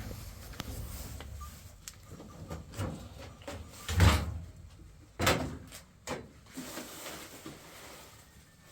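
A few separate knocks and thumps, like a door or a wooden lid being handled. The loudest comes about four seconds in and another just after five seconds, with a low rumble at the start.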